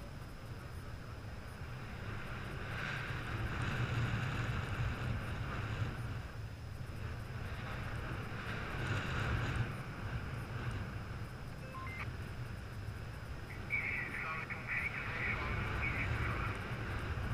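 Airflow buffeting a GoPro Hero 3+ microphone under a paraglider in flight: a steady low wind rumble that swells and eases.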